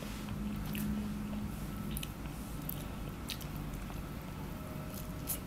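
Close-up mouth sounds of a person biting and chewing a mouthful of fried noodles, with scattered short clicks. A steady low hum runs through the first two seconds.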